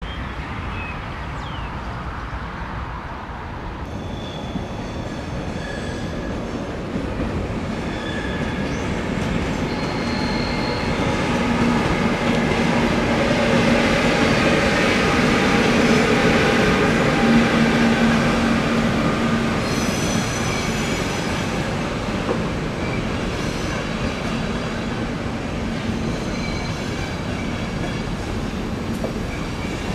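ÖBB Taurus electric locomotive 1216 022 hauling a EuroCity train across the station tracks, its running noise swelling to a peak about halfway through and then easing off, with steady high-pitched tones over it.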